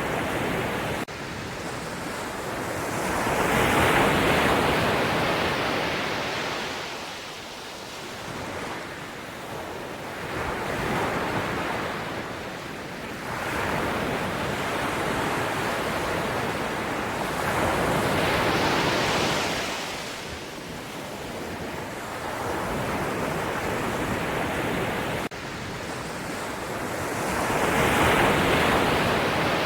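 Sea waves breaking, the surf swelling and ebbing in four slow surges about seven to nine seconds apart. The level drops suddenly about a second in and jumps back up near the end.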